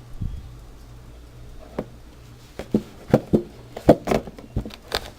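Handling noise from a phone's retail box: a series of short taps and knocks, starting about a third of the way in and coming thicker toward the end.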